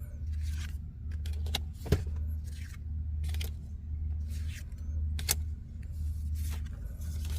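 Trading cards being handled and flipped one by one, with short clicks and snaps roughly once a second over a steady low hum.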